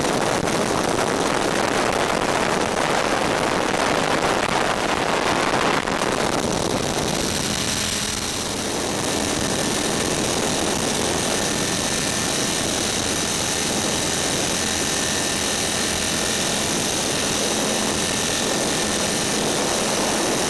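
A radio-controlled model aircraft in flight, heard through its onboard camera: a steady motor and rotor roar mixed with wind rush and a faint high whine. The roar eases a little about six seconds in, then holds.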